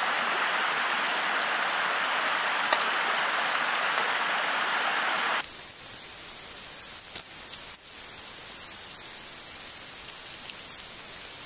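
Steady rushing hiss of a small stream of running water, dropping abruptly to a lower level about five seconds in, with a few faint clicks of handling.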